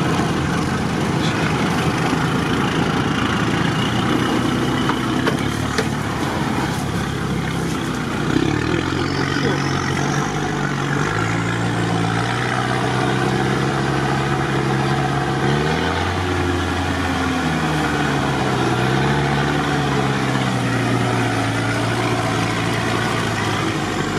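Off-road 4x4's engine running as it drives slowly through mud, heard from inside the cab. Its pitch shifts with the throttle, dropping and then climbing back about two-thirds of the way through.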